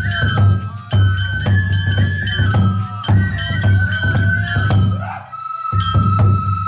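Japanese lion-dance (shishimai) festival music: a flute playing a high melody over steady drum and percussion strokes. About five seconds in the drumming stops for a moment while the flute holds one long note.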